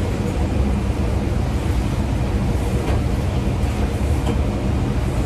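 Steady low rumble of commercial kitchen equipment running, with a few faint clinks.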